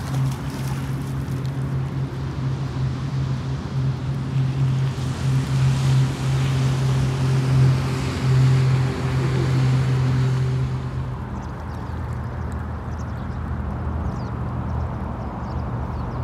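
A motorboat engine humming steadily as it passes on the water, loudest around the middle, dropping to a lower hum about eleven seconds in.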